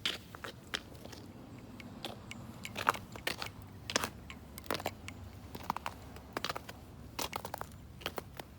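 Irregular crunches and sharp clicks, a few a second, with a quick cluster of clicks a little past the middle: handling and movement noise while the last air horn is readied.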